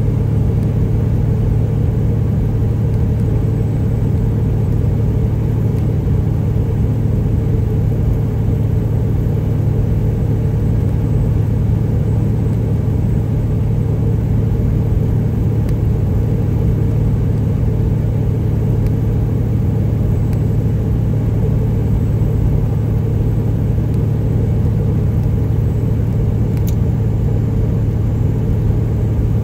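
Straight-piped Detroit Diesel Series 60 inline-six in a Peterbilt 379 running at a steady highway cruise of about 70 mph, heard from inside the cab as an even, unchanging drone.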